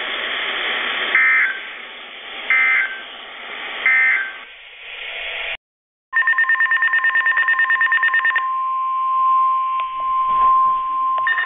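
Three short NOAA Weather Radio SAME data bursts about a second apart, the end-of-message code after a flood warning broadcast. After a brief dropout comes rapid two-tone electronic beeping from the weather radio alarms, then a steady alert tone of about 1 kHz (the 1050 Hz warning alarm tone that opens the next flood warning), and the beeping resumes near the end.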